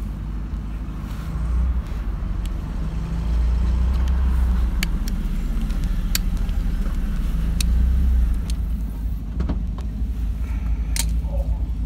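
A steady low rumble underlies a few sharp, separate metallic clicks as long-nose pliers work the retaining clip onto the pivot of a gear-shift linkage lever.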